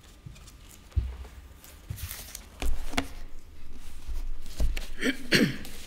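Footsteps and handling noise at a church lectern: several low thumps and knocks with rustling. It gets louder from about two and a half seconds in, as the sounds come close to the lectern microphone.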